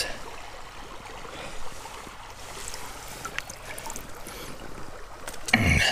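Shallow stream water running and lapping around hands held in it, with a few small clicks and splashes. A brief sound of a voice near the end.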